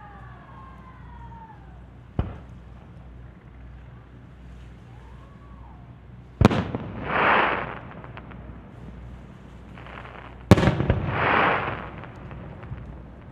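Aerial fireworks shells bursting: a small sharp bang about two seconds in, then two loud booms about four seconds apart, each followed by about a second of swelling hiss.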